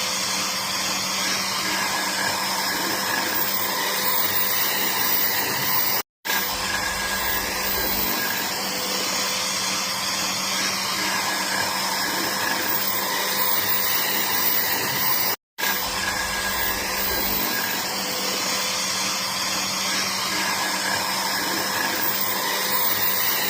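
An electric power tool's motor running steadily, a dense even whirring noise. It cuts off abruptly to silence twice, about six seconds in and again around fifteen and a half seconds.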